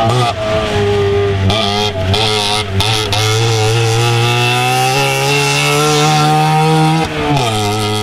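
Trabant 601 rally car's two-stroke two-cylinder engine running hard at high revs, with brief lifts about two and three seconds in, then dropping in pitch near the end.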